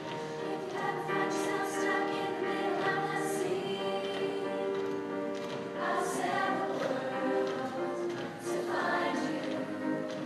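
Middle school show choir of mixed boys' and girls' voices singing in parts, holding sustained chords that change a couple of times.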